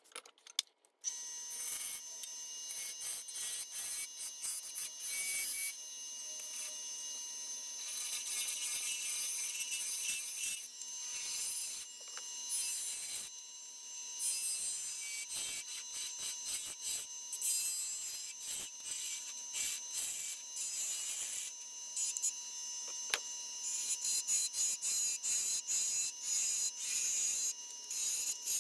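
Wood lathe running while a hand-held turning tool cuts the face of a spinning barn-wood disc blank: a steady motor hum under an uneven scraping hiss as shavings peel off. It starts about a second in.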